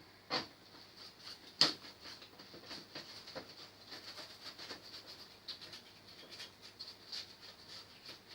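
Irregular small clicks and taps, two sharper ones within the first two seconds, over a faint steady high hiss.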